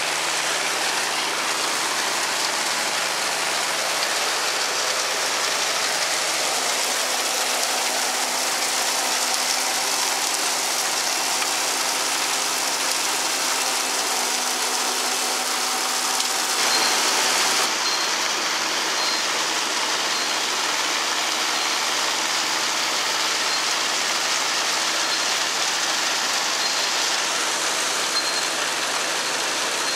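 Forage wagons unloading chopped corn silage: the wagon's conveyor chains and beaters run steadily under power, with a dense rushing hiss of silage pouring out. The sound changes abruptly about 17 seconds in.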